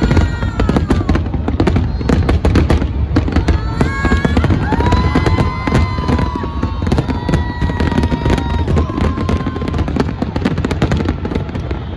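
Aerial fireworks going off in rapid succession: a dense, continuous barrage of cracks and bangs over a low rumble.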